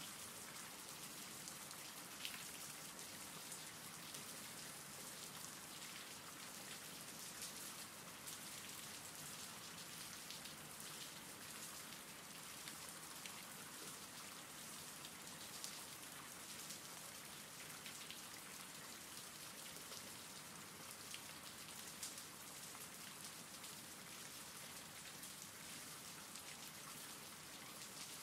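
Soft, steady rain falling, with scattered single drops ticking through it.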